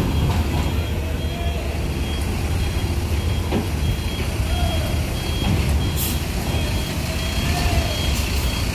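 Mercedes-Benz OH 1626 coach's diesel engine running at low speed as the bus creeps up onto a ferry's steel loading ramp, with a deep low rumble and a few brief knocks. An electronic beeper repeats steadily throughout.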